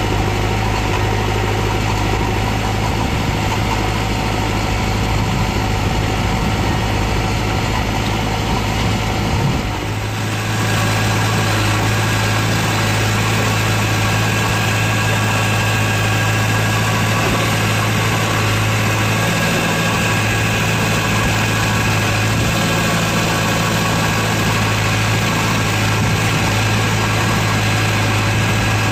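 Diesel engines of a JCB 3DX backhoe loader and a Mahindra tractor running steadily, a constant low hum. About ten seconds in, the sound shifts and a faint higher whine joins in.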